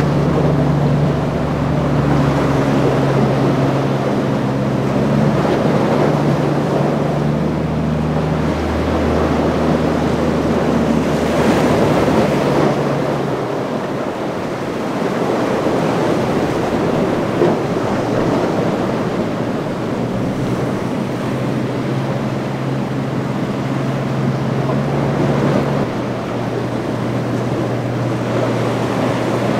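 Surf churning and waves breaking, with wind buffeting the microphone. A boat engine drones steadily underneath for the first dozen seconds, fades out, and comes back more faintly later on.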